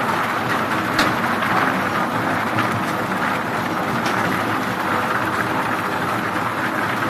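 Log debarking machine running, a load of thin poles tumbling and knocking against each other in its trough as their bark is stripped: a steady clatter with a sharper knock about a second in.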